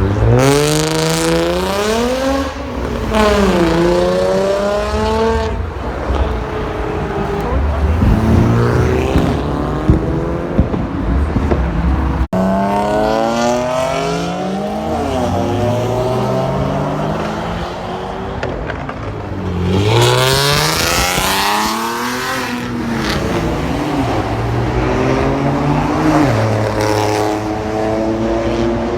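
Performance car engines revving hard as cars accelerate, the engine note climbing in pitch, dropping at each gear change and climbing again, several times over.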